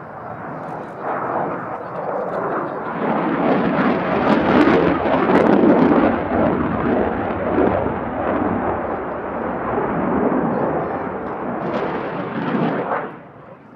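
Belgian Air Force F-16AM Fighting Falcon's Pratt & Whitney F100 turbofan: loud jet noise that builds over the first few seconds, stays loud, then drops off sharply near the end.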